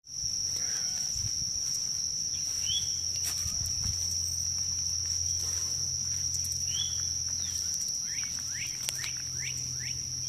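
Outdoor ambience: a steady, high-pitched insect drone, with a few short chirps scattered through it, clustered near the end, and a low hum underneath.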